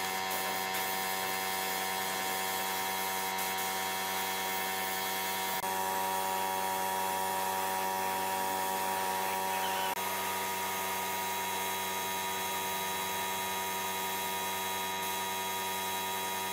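Compressed-air spray gun spraying wood finish: a steady hiss over the steady hum of the air compressor that feeds it. The hum's tone shifts slightly twice.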